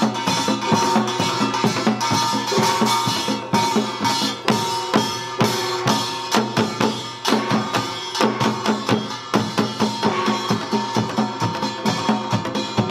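Samulnori percussion ensemble playing the Utdari rhythm: janggu hourglass drum, two buk barrel drums, jing gong and kkwaenggwari small gong struck in a fast, dense interlocking pattern. The gongs ring on under the drum strokes.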